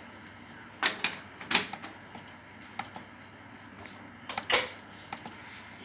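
Nuve NB5 water bath's blue push-knob controller being pressed and turned: a string of sharp clicks, the loudest about four and a half seconds in, with four short high beeps from the controller as the settings are entered.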